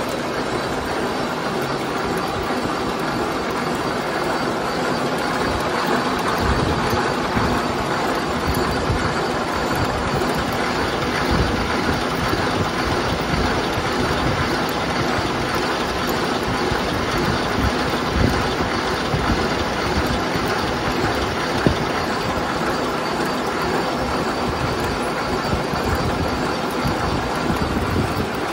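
Horizontal boring machine line-boring a row of welded steel housings on one rotating boring bar: steady machining noise dense with small clicks, and a few sharper clicks about two-thirds of the way through.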